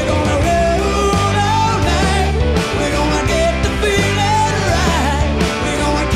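Country-rock band playing: electric guitar, bass guitar and drum kit with a steady beat, and a male singer carrying the melody.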